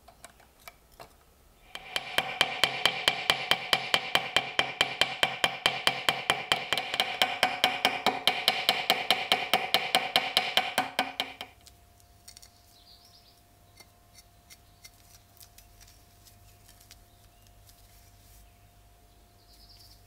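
Ball-peen hammer tapping rapidly on the steel pivot pin of a copper-handled pocket knife set on a vise anvil, about five light blows a second for roughly ten seconds, the metal ringing with each blow: peening over the pin to rivet the blade's pivot.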